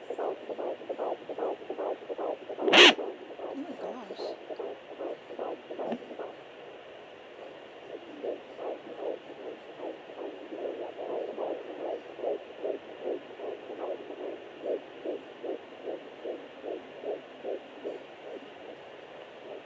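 Fetal heartbeat through a pocket fetal doppler's speaker: a fast, even pulse at about 154 beats a minute, a normal rate, over steady static hiss. There is one loud sharp knock about three seconds in. The pulse fades for a couple of seconds partway and then comes back.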